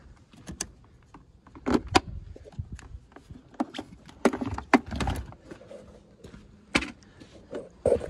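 Scattered clicks, clanks and rattles of hands handling tools and parts, with a few sharper knocks about two seconds in, around the middle and near the end.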